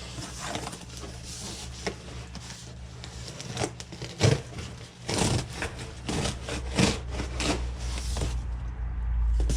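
A cardboard parcel being opened and its packing handled: irregular scraping, rustling and light knocks, with a low hum underneath that grows louder near the end.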